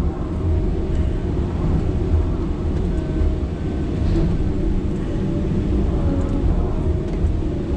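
Diesel engine and hydraulics of a John Deere 853M tracked feller buncher running, heard from inside its cab: a steady low drone with a faint wavering whine above it.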